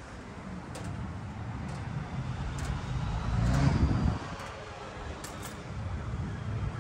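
Outdoor walking ambience: wind buffeting the microphone over a low rumble of traffic, with a louder rushing swell about three and a half seconds in. Faint footstep ticks come roughly once a second.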